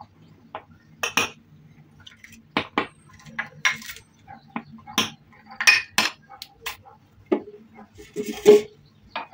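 Glass tumblers and small bowls being moved and set down on a tabletop: irregular light clinks and knocks, the loudest near the end.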